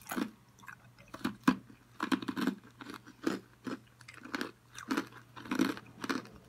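A person chewing and smacking on a mouthful of food: a string of short, sharp mouth sounds, unevenly spaced at about two a second.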